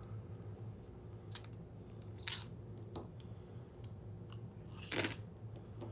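A few scattered light clicks and short scrapes from small motor parts and screws being handled, over a steady low hum.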